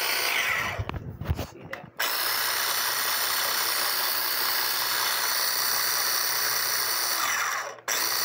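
Food processor motor running in pulses as it blends a liquid green herb sauce: it stops for about a second with a few low knocks, runs steadily again for about six seconds, and cuts out briefly near the end.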